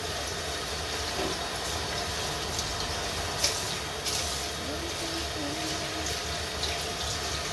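Kitchen tap running steadily into a sink while something is washed under it, with a couple of light clicks a little past the middle.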